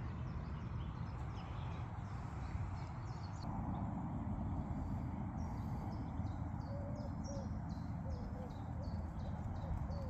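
Small birds chirping in a quick repeated series, starting about five seconds in, over a steady low outdoor rumble at the pond's edge.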